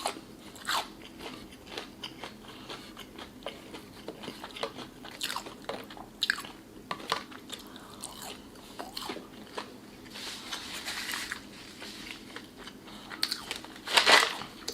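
A person chewing and biting food close to the microphone: irregular wet mouth smacks and crunchy bites, with louder ones near the end.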